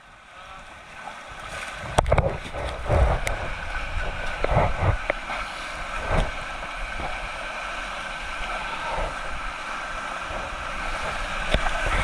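River water rushing around a raft, with wind buffeting the microphone and a few low thumps and splashes in the first half.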